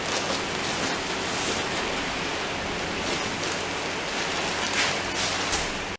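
Keyang D-23 mortar mixer running in ready-mix mortar: a steady churning hiss over a faint motor hum, with a few brief swells.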